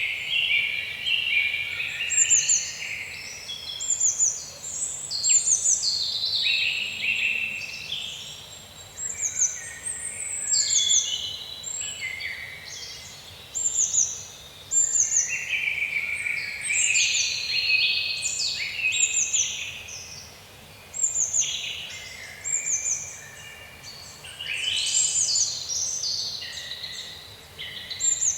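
Songbirds singing, several songs overlapping: quick runs of high falling notes and warbling phrases, each lasting a second or two, with brief gaps between, over a faint steady hiss.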